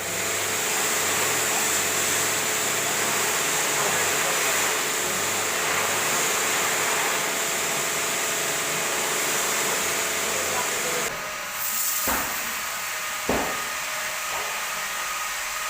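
Automatic car wash unit spraying high-pressure water, a steady loud hiss with the hum of its pump motor under it. About eleven seconds in the motor hum stops while the hissing spray goes on, and a few sharp knocks follow.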